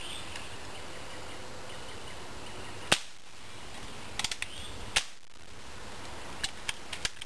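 Two sharp shots from Crosman 1377 multi-pump pellet pistols, about two seconds apart, with lighter clicks and ticks between and after them.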